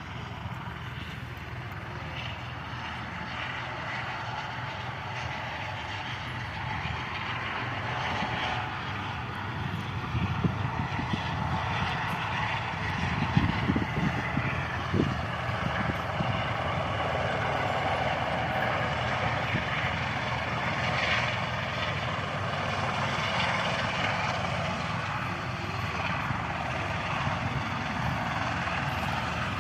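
Aircraft engine noise: a steady rushing drone that grows gradually louder, with a few brief low bumps around the middle.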